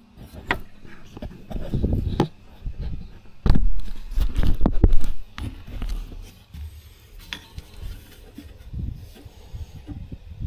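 Hands working on metal engine parts: scattered clicks, taps and knocks as fittings and linkage are handled, with a loud low rumble for a second or two near the middle.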